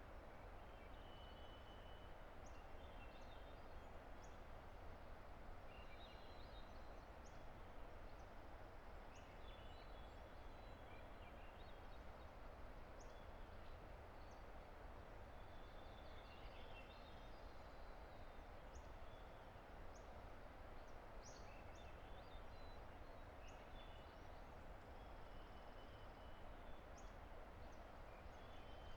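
Faint, steady rush of a distant river, with small birds singing scattered short, high chirps and trills over it.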